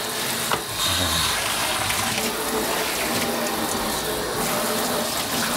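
Kitchen tap running steadily into a stainless-steel sink, the water splashing as the sink is rinsed down. There is a short knock about half a second in.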